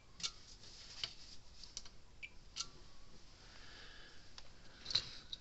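Small, light clicks and taps of multimeter test probes and hands against a circuit board and workbench, scattered and uneven, with the loudest tap a little before the end.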